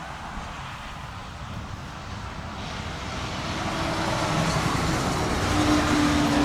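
Engine noise of a passing vehicle or aircraft with a deep rumble, growing steadily louder, with a steady hum joining it near the end. It starts and stops abruptly.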